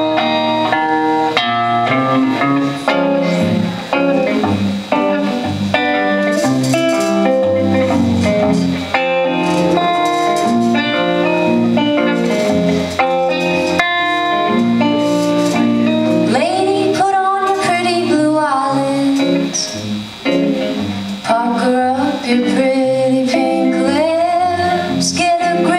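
Live song: a guitar played in quick plucked or strummed notes, with a woman singing long, wavering notes in the second half.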